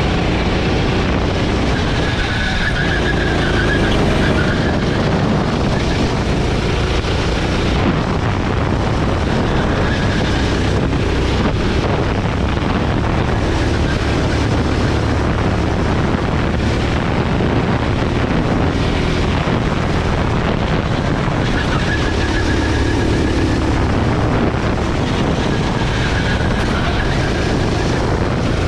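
Gasoline go-kart engine running hard through a lap, its revs rising and falling with the corners, with wind noise on the helmet-mounted microphone.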